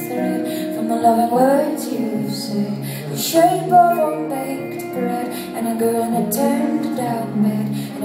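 Live song performance: a guitar playing with a woman singing.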